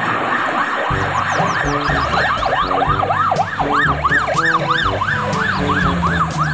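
Ambulance siren wailing in quick rising-and-falling sweeps, about three or four a second, over background music.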